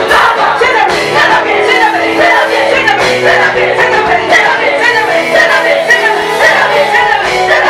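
Lively Swahili church praise music: many voices singing together over instruments, with a crowd shouting along.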